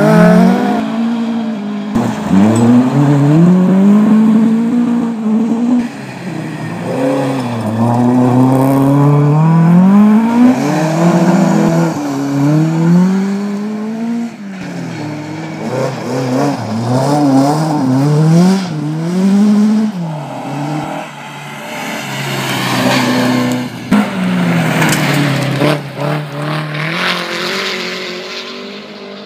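Historic rally car engine revving hard on a gravel forest stage. Its pitch climbs and drops again and again as it changes gear and lifts off, then it fades away near the end.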